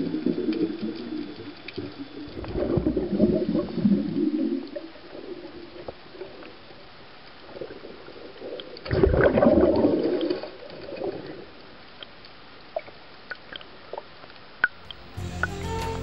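A scuba diver's exhaled breath bubbling out of the regulator underwater, in three gurgling bursts a few seconds apart. Music comes in near the end.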